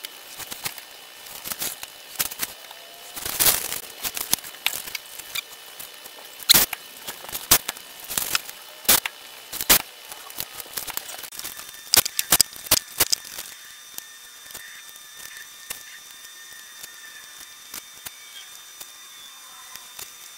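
Paper stencils, a straight edge and tape being handled on a workbench: irregular sharp taps, clicks and paper rustles, thinning out and quieter about two-thirds of the way through.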